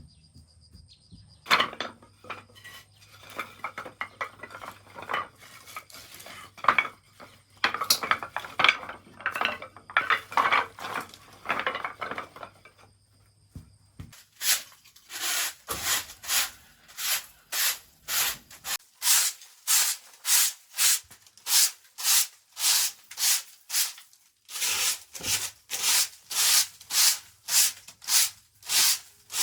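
Irregular clattering and knocking of objects being handled. After about halfway, steady back-and-forth rubbing or scraping strokes take over, about two a second, with a brief pause near the end.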